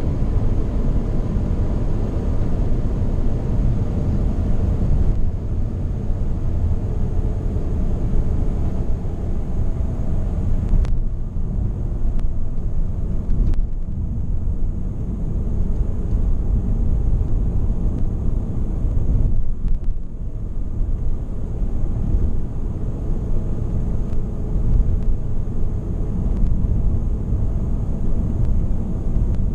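Ford Mondeo ST220 heard from inside the cabin while cruising: a steady low rumble of road and tyre noise, with the 3.0 V6 running quietly under light load. The rumble eases briefly twice, about eleven and twenty seconds in.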